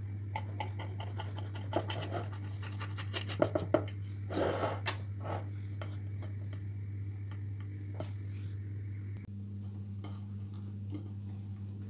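Knife cutting through the baked crust of a potato-filled bread on a glass plate: a run of small crackles and scrapes, with a louder scraping stretch about four and a half seconds in. A steady low hum runs underneath.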